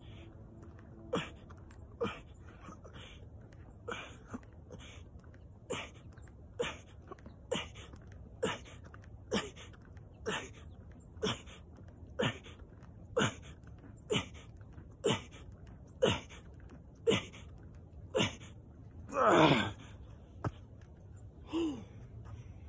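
A man breathing out hard with each push-up, a short forced exhale or grunt about once a second, some twenty in a row. Near the end comes a longer, louder groan as the set finishes.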